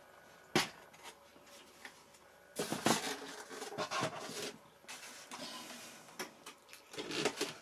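Handling noise of a foam RC model plane: a sharp knock about half a second in, then rustling, scraping and light knocks as the plane is turned over in the hands and moved back onto a foam stand.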